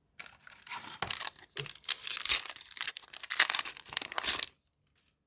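A foil trading-card packet being torn open and crinkled, a run of crackling rustles that stops about a second before the end.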